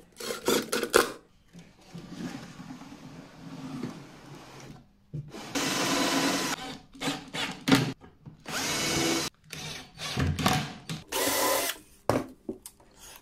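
12-volt cordless impact driver driving screws into steel drawer runners, run in a series of short spurts, the longest about two seconds near the middle.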